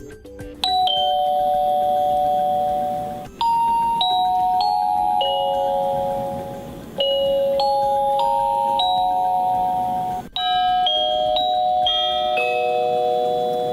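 Honeywell RCWL110A wireless door chime playing its selectable tunes: a two-note ding-dong, then longer multi-note chime melodies, each note a clear bell-like tone ringing on and fading.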